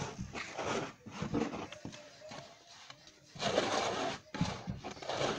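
Wooden stick stirring and scraping thick porridge in a large metal cooking pot, in irregular scraping strokes.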